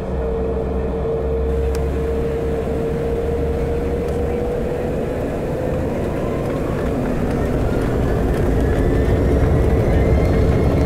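Jet airliner engines heard from inside the cabin: a low rumble under a steady whine, with a second whine rising in pitch from about halfway through and the whole sound growing louder near the end as the engines spool up for the takeoff roll.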